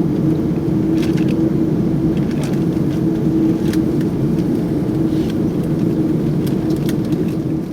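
Cabin noise of an Airbus A330-300 taxiing after landing: a steady low rumble of engines at idle and air-conditioning with a constant hum, and a few faint clicks and rattles.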